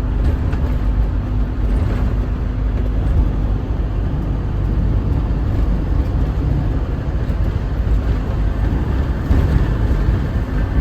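Steady, loud, low-pitched vehicle rumble with no distinct events; a faint steady hum runs under it for the first three and a half seconds or so.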